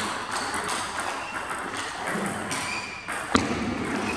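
Table tennis balls clicking on tables and bats, with faint voices in the background. One sharp click stands out about three seconds in.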